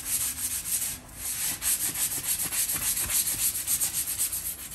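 Sanding block rubbed by hand over stained timber boards in quick back-and-forth scratchy strokes, wearing through the stain to bring up the wood's texture; the strokes pause briefly about a second in.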